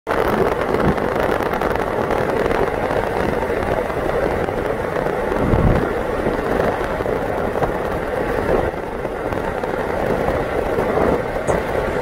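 Steady rushing noise of a moving vehicle in motion, with a brief low thump about five and a half seconds in.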